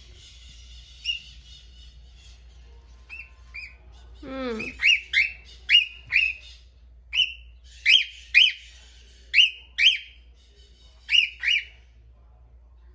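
A cockatiel chatters softly, then gives a rising whistle about four seconds in. It follows with about eleven loud, short, sharp chirping calls, many of them in quick pairs.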